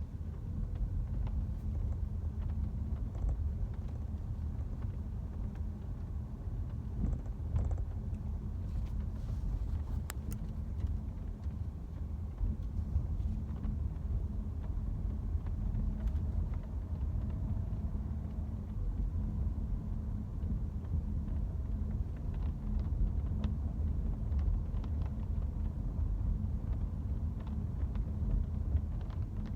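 Steady road rumble inside a moving BMW F30's cabin, with faint, scattered creaks and squeaks from the rubber door seals rubbing against the body.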